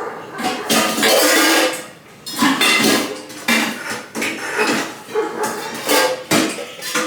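Metal pots and kitchen utensils clattering and clanking: a series of knocks, with a longer, noisier scrape or rustle about a second in.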